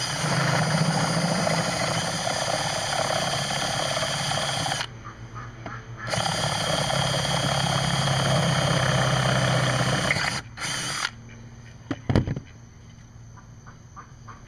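Cordless drill boring out the undersized mounting holes in the metal tabs of a replacement recoil starter, so they fit over the engine's studs and posts. The drill runs steadily in two runs of about five and four seconds, then gives a brief third burst. A short knock follows near the end.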